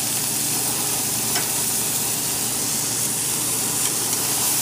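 Burger patties sizzling on a gas grill over open flame: a steady frying hiss with a faint tick or two.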